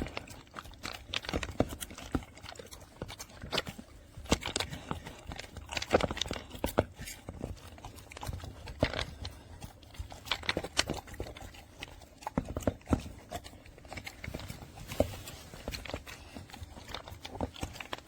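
Dog eating dry food from a slow-feeder puzzle bowl: irregular clicks and clatters of food and bowl as it noses and licks at the ridges, with crunching.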